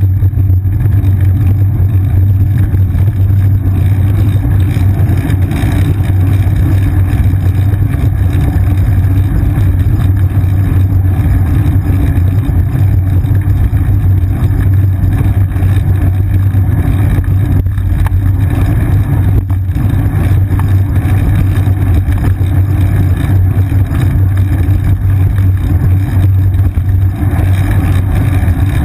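Steady, loud low rumble of a bicycle riding over pavement, with wind and road vibration picked up by the seat-mounted GoPro Hero 2 camera.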